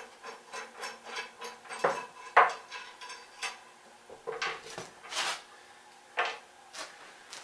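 Metal parts of a dolly being handled and shifted into place: a run of light, even clicks about three a second, then several sharp metallic clanks.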